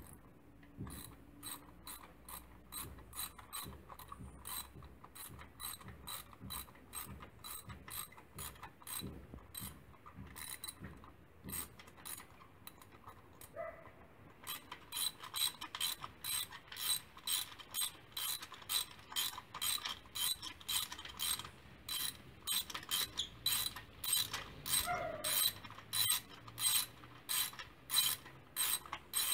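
Socket ratchet clicking in a steady rhythm, about two clicks a second, as it is worked back and forth on an extension to turn a spark plug in the engine's cylinder head. The clicks grow louder about halfway through.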